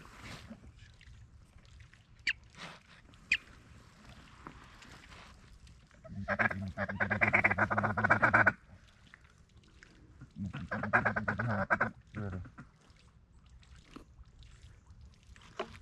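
Duck call blown in two loud bursts of rapid quacking chatter, the first about six seconds in and a shorter one a couple of seconds later, calling to ducks in flight.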